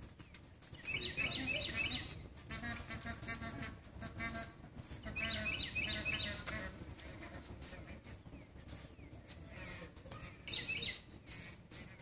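Sarus crane calling: a series of rapid, repeated loud call notes in several bouts, the strongest about a second in and again around five to six seconds, with a shorter bout near the end.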